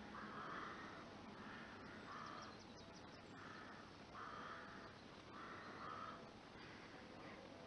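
Faint crow cawing repeatedly, about one harsh call a second, the calls dying away about six seconds in.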